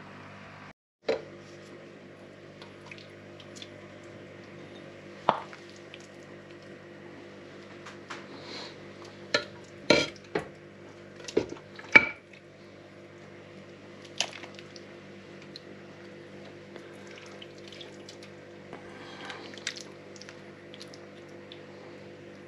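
A metal ladle clinking and scraping against an aluminium Afghan kazan and a plate as thick vegetable stew is stirred and served out, about a dozen sharp knocks scattered through, with wet spoon sounds between them. Under it runs a steady low hum.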